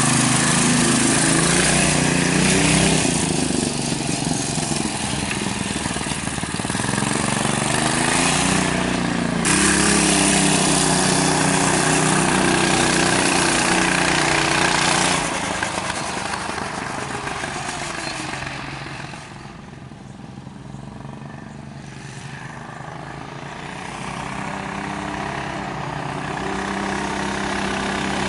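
Small engine of a CVT-driven mini bike with an ATV carburettor, running and revving up and down several times. It fades for a few seconds past the middle, then grows louder again.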